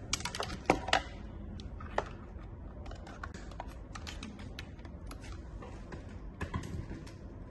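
Hard plastic clicks and knocks from an acrylic 3D LED digital clock being handled: a quick run of clicks at the start, a single sharp click about two seconds in, scattered light clicks, and another cluster of clicks near the end as a finger works at the top of the clock.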